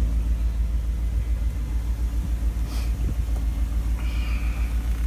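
Power convertible top of a 1959 Lincoln running with its switch held, a steady low motor rumble as the top rises.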